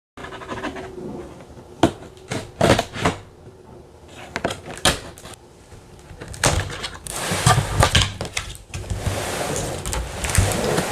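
Toy packaging being handled: sharp clicks and knocks, then a longer stretch of rustling plastic and cardboard from about seven seconds in.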